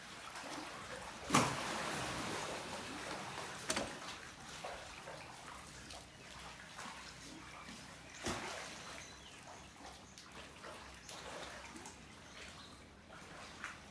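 Water trickling and splashing, a steady noisy wash broken by three sharp knocks, the loudest about a second in.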